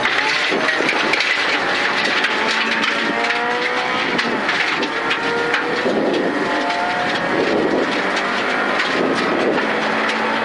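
Suzuki Ignis Sport rally car's 1.5-litre four-cylinder engine, heard from inside the cabin, pulling hard and rising in pitch again and again as it shifts up through the gears. Gravel crackles and rattles against the underside throughout.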